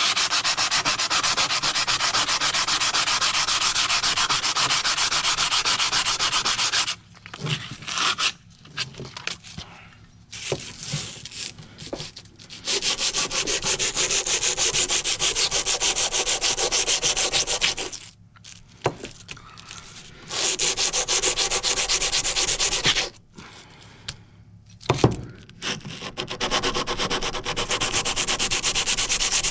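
100-grit sandpaper rubbed by hand in fast back-and-forth strokes on a steel pipe wrench, a steady rasp. It stops three times for a few seconds, with a few light knocks in the pauses, then starts again.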